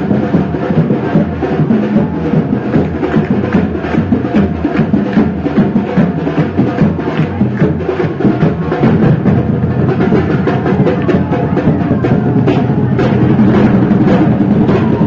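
Loud music driven by fast, dense drumming with a steady beat of rapid strikes, growing a little louder in the second half.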